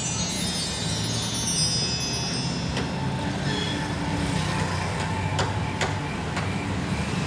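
A cascade of chime tones, like a wind chime, falling in pitch over the first couple of seconds, over a steady low hum. A few sharp clicks come later.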